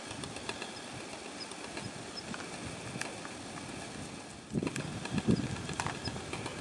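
Alpine ibex sparring: a few sharp knocks of horn on horn, about three seconds in and twice more near the end, with dull low thumps of their bodies and hooves around the middle of the second half, over a steady outdoor hiss.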